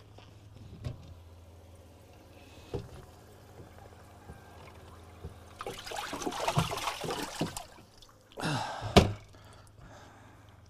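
Water splashing and sloshing in a boat's live well as a big largemouth bass is grabbed by hand, in two bursts, with a sharp knock at the end of the second, the loudest sound. A few light knocks come before it.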